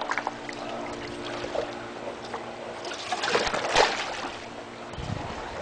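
Swimming-pool water sloshing and splashing against the pool edge under a floating solar cover, set rocking by earthquake shaking, with a louder splash surge about three to four seconds in.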